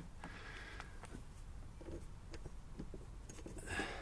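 Faint handling sounds: light clicks and knocks as an air impact wrench is lifted and its socket fitted onto a mower blade bolt, with steady low wind rumble on the microphone and a brief soft hiss near the end. The wrench is not running.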